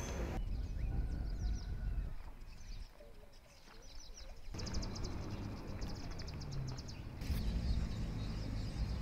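Outdoor ambience of small birds chirping, with a fast, evenly repeated high trill for about two seconds in the middle, over a low rumble. The background changes abruptly a few times.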